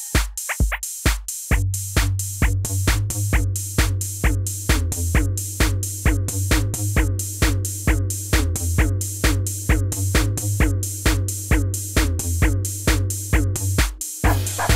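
Electronic background music with a steady, fast drum-machine beat over a bass line.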